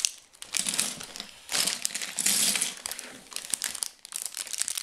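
Loose plastic Lego pieces clicking and clattering against each other and the tabletop as hands rummage through a pile, an uneven run of small rapid clicks.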